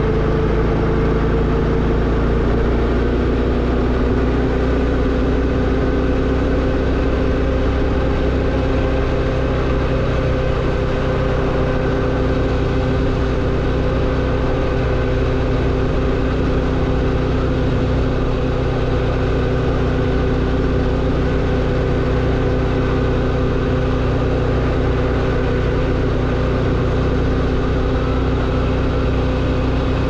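Motorcycle engine running steadily under way, its pitch rising slightly over the first few seconds and then holding even.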